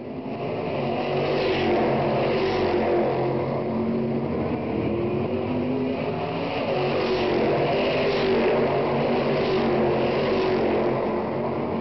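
Stock Car Brasil race cars running at racing speed, a continuous multi-car engine sound with several cars passing one after another, the loudest passes about two seconds in, about seven to eight seconds in, and near ten seconds.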